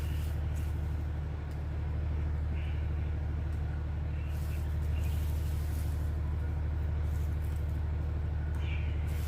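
Steady low mechanical rumble with a deep, even hum, unchanging throughout.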